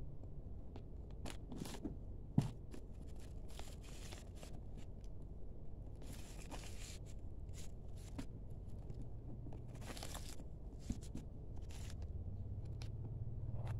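Crinkling and rustling of the white packing wrap in a new faux-leather handbag as hands handle and pull at it, in short irregular bursts. There is one sharp click about two and a half seconds in, over a low steady hum.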